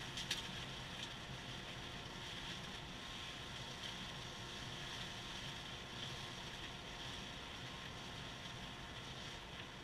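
Cyclone dust collector running steadily, air rushing through its hose as it sucks up wood shavings, with a sharp click shortly after the start.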